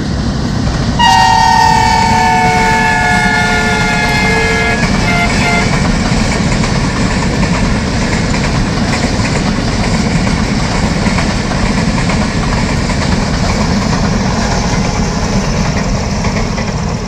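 Passenger train's diesel locomotive sounding its multi-tone horn for about four seconds, starting about a second in, the chord sliding slightly lower in pitch as it goes. The heavy, steady noise of the express train passing continues after the horn stops.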